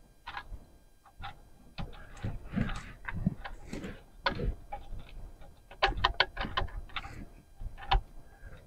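Light metallic clicks and knocks at irregular intervals, with a quick run of clicks about six seconds in: the timing chain and a chain guide of a 2008 Volkswagen GTI engine being handled and fitted by hand.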